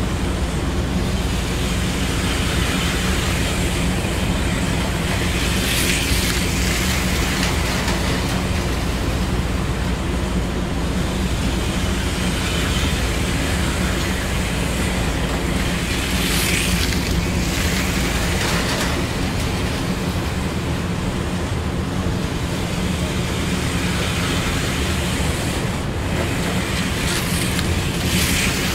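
HO-scale Auto World 4 Gear slot cars running laps on a layout track: a steady electric motor hum and rolling noise, with a brighter hissing whine that swells three times, about every ten seconds, as a car passes close.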